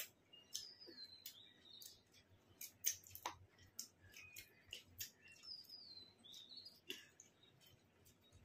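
Faint bird chirps, short high calls falling in pitch, repeated every second or so, with soft clicks and smacks of hand-eating at the table.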